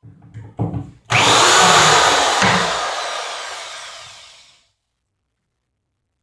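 A few wooden knocks, then a power drill backing a screw out of a wooden brace: the drill starts suddenly about a second in and runs loud before fading out over a few seconds.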